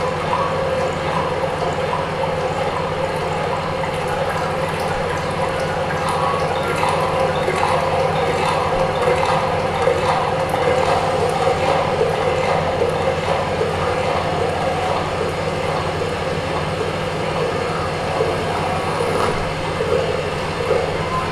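Improvised experimental sound performance: a dense, steady wash of rumbling, grinding noise with a low hum under it and scattered small clicks on top.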